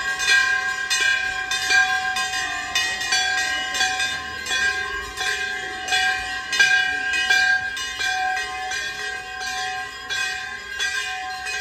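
Many hanging metal temple bells ringing together, struck again and again about two or three times a second, their tones overlapping into a continuous ringing.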